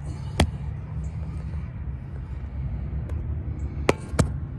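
Three sharp metallic knocks of tools and parts during CV axle work: one about half a second in and two in quick succession near the end, over a steady low rumble.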